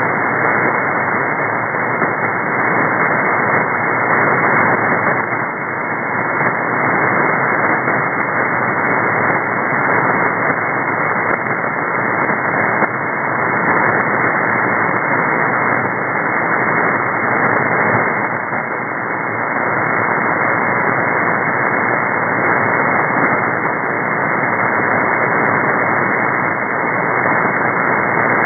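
Shortwave receiver static tuned to the 4651 kHz aeronautical channel in upper sideband with no one transmitting: steady, narrow, muffled hiss with faint crackles, wavering slightly in level.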